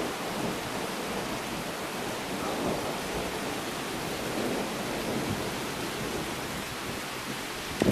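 Steady rain falling, an even hiss with no distinct events.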